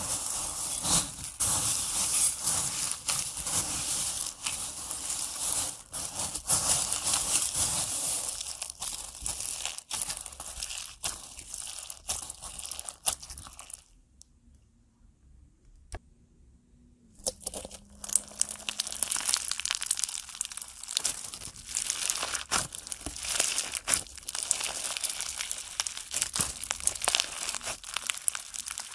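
Crunchy slime, clear slime packed with small white beads, being pressed, squeezed and stretched by hand: a dense crackle of the beads crunching and popping. It stops for about three seconds midway, then starts again.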